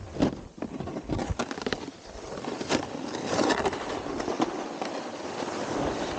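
Snowboard scraping and chattering over icy snow: a rough, continuous scrape broken by irregular clattering knocks, steadier from about two seconds in.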